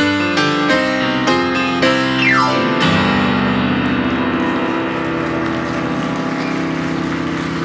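Grand piano playing: a run of struck chords, a fast downward glissando about two seconds in, then a closing low chord struck and left ringing, slowly fading.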